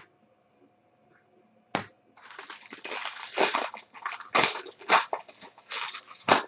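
Foil wrapper of a 2016 Bowman Draft Super Jumbo baseball card pack being torn open and crumpled by hand: loud crackling in quick irregular bursts, starting about two seconds in. There is a single sharp click at the start.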